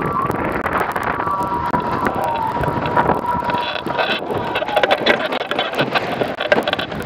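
Wind buffeting the microphone and water rushing past the hull of an A-Class catamaran sailing at speed. Through the first five seconds a steady high whistle runs, wavering slightly in pitch. From about four seconds in come knocks and clatter as the sailor crosses the boat during a tack.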